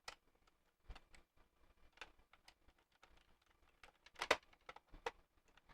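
Scattered light clicks and taps of a puzzle box's keys and parts being handled and fitted, with a sharper cluster of clicks a little after four seconds in.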